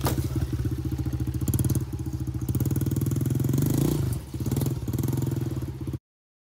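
Honda CRF70 dirt bike's small single-cylinder four-stroke engine running under throttle as it rides over a dirt berm, with a sharp knock right at the start. The engine note drops a little after four seconds in, then picks up again.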